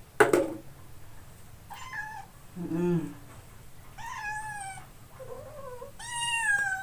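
White kitten mewing several times in short, high calls, protesting as it is held and shampooed for a bath. A sharp knock sounds at the very start.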